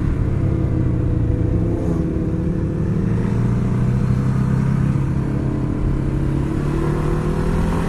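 Ducati Hyperstrada's 821 cc V-twin engine running under way, heard from on the bike. Its pitch dips about two seconds in, holds steady, then rises near the end as the bike accelerates.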